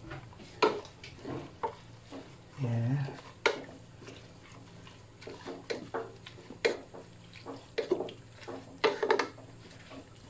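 A cooking utensil stirring pechay and shrimp in broth in a pan, with irregular sharp clinks and knocks of metal against the pan.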